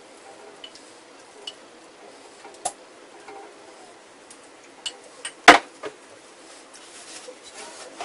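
Basting brush working glaze onto skewered chicken on a wire oven rack, with scattered light clicks of the brush against a glass measuring cup and the rack. One much louder sharp knock comes about five and a half seconds in.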